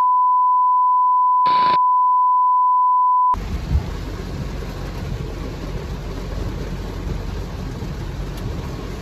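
A steady, loud 1 kHz test-tone beep with a short burst of TV static, cutting off suddenly about three seconds in. Then the steady low rumble and hiss of a car on the road, heard from inside the cabin.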